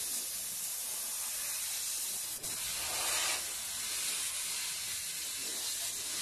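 T8024 fiber laser tube cutting machine cutting a metal tube, with a steady high hiss of assist gas from the cutting nozzle. The hiss grows louder for about half a second around the middle.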